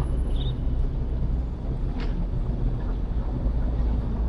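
Steady low rumble of city street ambience, such as traffic and wind on the microphone, with a short high chirp near the start and a single sharp click about two seconds in.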